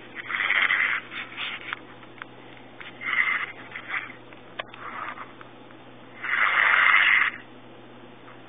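A woman snoring, heard through a phone's speaker: a series of snoring breaths every couple of seconds, the longest and loudest about six seconds in, with a few faint clicks between.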